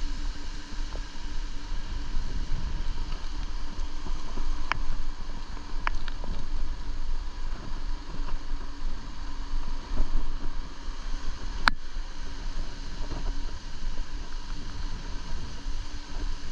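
Wind buffeting the microphone in a steady low rumble while a mountain bike rolls along firm beach sand, under a faint steady hum. A few sharp ticks come through, the loudest just past two-thirds of the way in.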